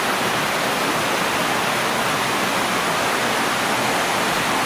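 Shallow stream water rushing steadily down a smooth bedrock slab in a small cascade.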